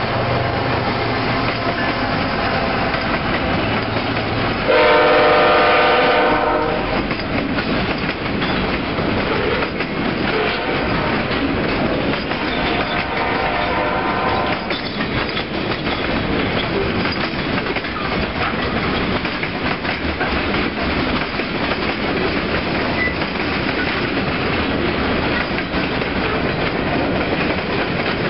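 CSX freight train passing close by: the diesel locomotives' engines hum, then the horn sounds one loud chord lasting under two seconds about five seconds in, with a fainter horn note around twelve seconds in. The freight cars then roll by with a steady rumble and clickety-clack of wheels over rail joints.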